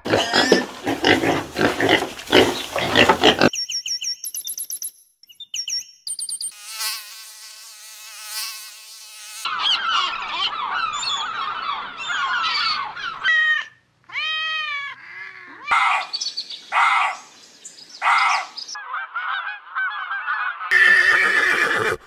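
A series of different animal sounds cut one after another. Pigs grunt and squeal for the first few seconds, gulls call in arching cries around the middle, and other short animal calls follow.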